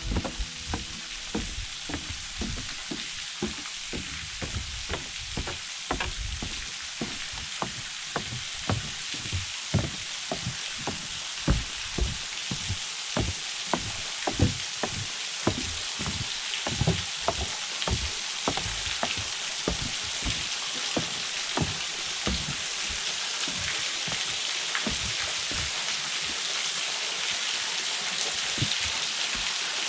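Footsteps going down trail stairs, about two a second, over the steady rush of a small waterfall that grows louder toward the end as the steps thin out.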